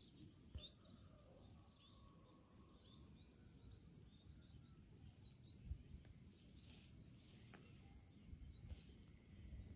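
Near silence: faint outdoor ambience with small, repeated high-pitched chirps and one soft bump about halfway through.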